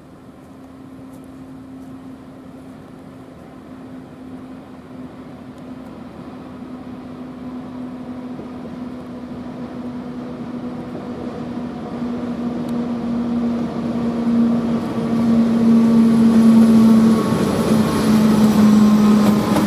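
Two class 753.6 diesel locomotives hauling a freight train, their engines giving a steady drone that grows steadily louder as they approach. The pitch drops a little in the last few seconds as they come level.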